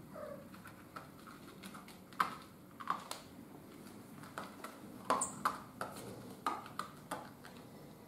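A kitten's paws and claws tapping and scratching lightly on a bristle doormat and the glass door as it plays: irregular soft clicks and taps, the loudest a little after two seconds and again around five seconds.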